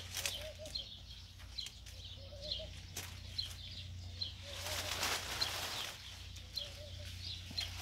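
Small birds chirping: short high chirps repeated irregularly, one or two a second, with patches of rustling noise.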